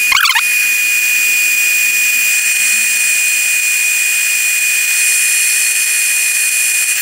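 Power drill spinning a diamond-coated core bit that grinds dry into a polished tile: a steady high whine over a hiss, with a brief falling squeal right at the start.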